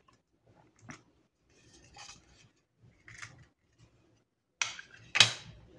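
Plastic back cover of a Texas Instruments BA II Plus calculator being handled and fitted onto the body: a few faint plastic rattles and scrapes, then two sharper clicks close together near the end as the cover's clips snap into place.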